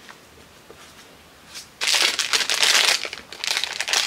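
Product packaging crinkling and rustling as it is handled and opened. It starts suddenly about two seconds in, after a few faint clicks.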